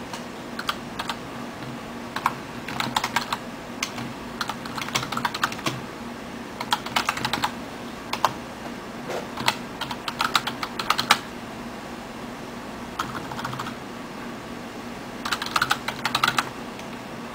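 Typing on a computer keyboard: bursts of rapid key clicks with short pauses between them, over a steady low hum.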